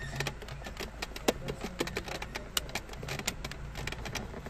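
Utility-knife blade cutting and scraping into plastic shelf pins to trim them flush, a run of irregular sharp clicks and scratches, several a second.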